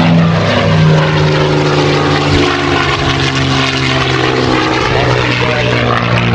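A P-51D Mustang's Packard Merlin V-12 engine and propeller running loudly in a flying pass. The engine note shifts slightly in pitch a couple of times as the aircraft manoeuvres.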